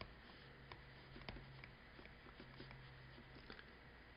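Near silence: faint taps and scratches of a stylus writing on a tablet, with a faint low hum that comes and goes.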